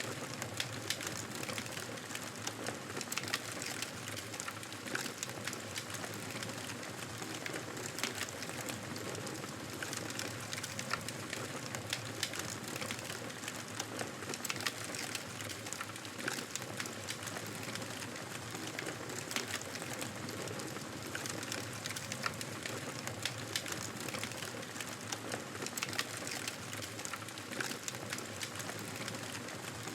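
Wood fire burning in a fireplace, with a steady hiss and frequent small crackles and pops scattered throughout.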